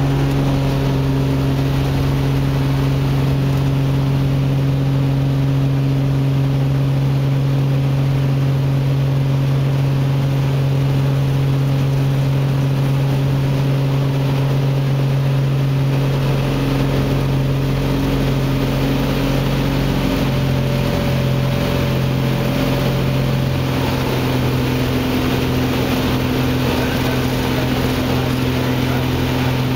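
Cessna 185 Skywagon floatplane's piston engine and propeller droning steadily in flight, heard from inside the cabin. The tone shifts slightly about two-thirds of the way through.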